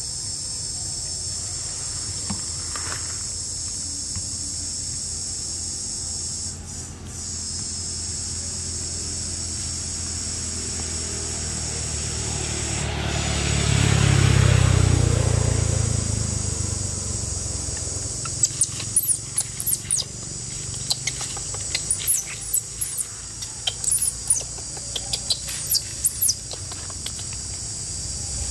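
Steady high chorus of insects buzzing, with a low rumble that swells and fades about halfway. In the last third, a run of short, sharp, high-pitched squeaks.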